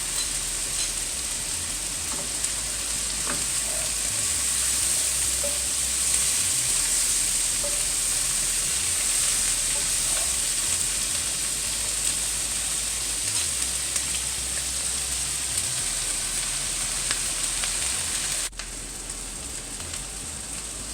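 Boiled black-eyed peas frying in hot sunflower oil in a pan, sizzling steadily, with occasional faint ticks of stirring. The sizzle suddenly drops quieter about 18 seconds in.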